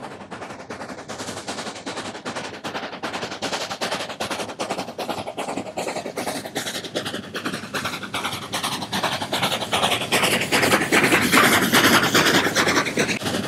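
K-36 narrow-gauge 2-8-2 Mikado steam locomotive pulling a passenger train, its exhaust beating in a fast, even chuff. The beats grow steadily louder as the engine approaches and passes close by, loudest about eleven seconds in.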